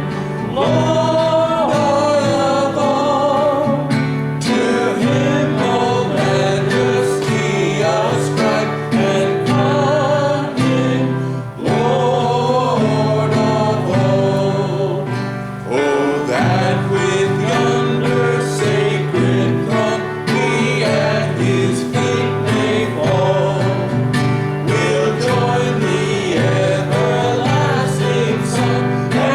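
Gospel hymn sung with vibrato over instrumental accompaniment.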